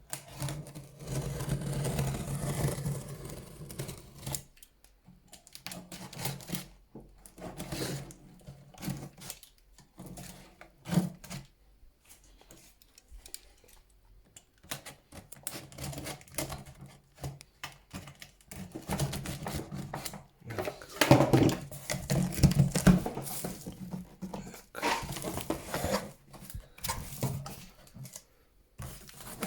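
Cardboard packing of a PC case being cut open and the case worked out of the box: irregular scraping, rustling, cardboard tearing and scattered knocks, coming in bursts with quieter pauses. The case is stuck tight and hard to pull out.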